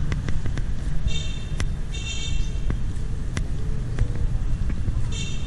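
Steady low rumble of town road traffic with scattered light clicks, and two short high-pitched chirps about one and two seconds in.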